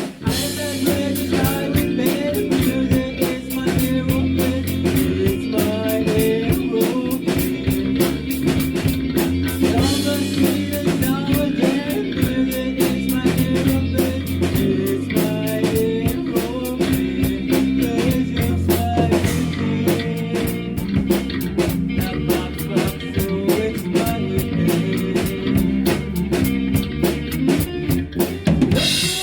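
A band playing a song, with guitar over a steady drum-kit beat.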